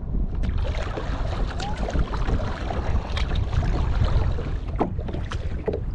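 Wind buffeting the microphone in a steady low rumble, over choppy water lapping and splashing against a kayak's hull, with a few short slaps of water.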